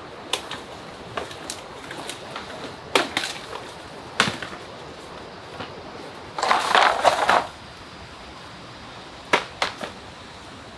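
Footsteps and rustling through dry leaf litter and undergrowth: scattered snaps and crunches, with a denser crunching rustle lasting about a second past the middle.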